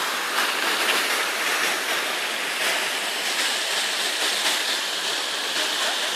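Steady rushing splash of a public fountain: a tall jet and a ring of small spouts pouring over the basin rim into the water.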